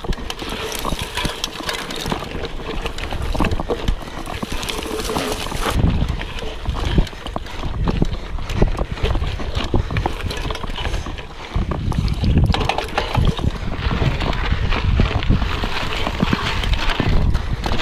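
Rigid Canyon Grail gravel bike climbing a rutted dirt singletrack, its tyres crunching and scrabbling over loose dirt and rock while the bike rattles over the bumps. The noise grows rougher and heavier in two stretches, about six seconds in and again from about twelve seconds in.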